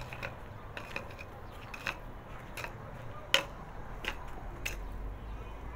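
Irregular light taps and scrapes, about seven in all, the loudest a little past the middle, as a small hand tool digs at dirt and stones at the base of a concrete wall.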